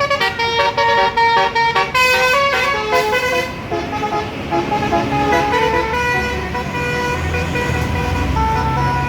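Tour bus basuri horn, a multi-trumpet telolet air horn, playing a tune in quick stepped notes. It is loudest for the first three and a half seconds, then goes on with softer, longer notes over the low rumble of the bus engine.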